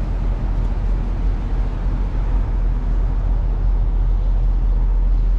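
Ford Mustang GT's 5.0-litre V8 idling with a steady low rumble, left running while the car is flat-towed behind another vehicle; the onlooker guesses this keeps the transmission lubricated.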